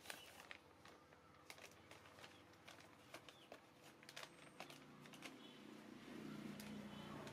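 Near silence: faint room tone with scattered small clicks, a faint brief high squeak about five seconds in, and a low hum near the end.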